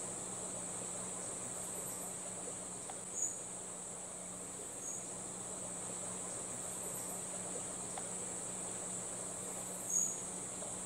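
Steady high-pitched drone of an insect chorus, crickets or the like, with a low steady hum underneath. A brief sharp high chip sounds about three seconds in and another near the end.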